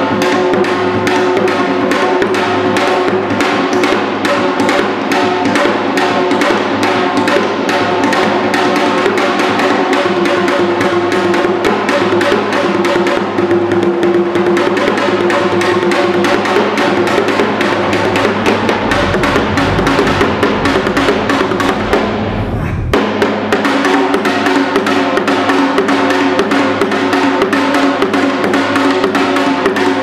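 Janggu, the Korean hourglass drum, struck in quick dense strokes over a string ensemble holding sustained notes. About 19 seconds in, a low rumble joins and cuts off suddenly near 23 seconds.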